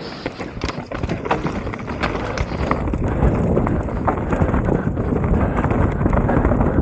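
Mountain bike rolling along a trail, with quick clattering clicks and knocks from the bike and the ground. A rushing tyre and wind noise grows louder from about halfway as it picks up speed.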